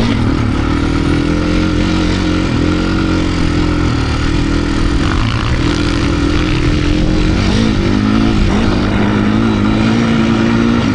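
2025 Beta RR390 X-Pro's single-cylinder four-stroke engine working hard in deep sand, its revs rising and falling with constant throttle adjustments and dipping briefly several times as the throttle is eased.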